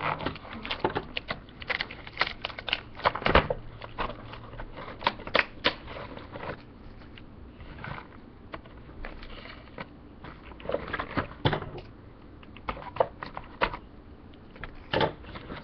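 Cardboard box and clear plastic packaging being pulled and torn open by hand: irregular crinkles, crackles and sharp snaps throughout.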